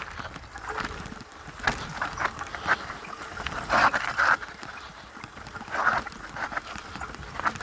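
Canyon Strive mountain bike clattering over a rough, rocky trail: irregular knocks and rattles over a low rumble of tyre and wind noise.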